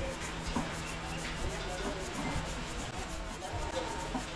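A brush rubbing against a wooden hotpot body spinning on a small lathe, over the steady hum of the lathe's motor.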